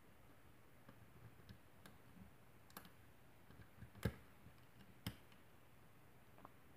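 Faint metallic clicks and ticks of a hook pick working the pin stack inside a spool-pinned lock cylinder under tension, with two louder clicks about four and five seconds in.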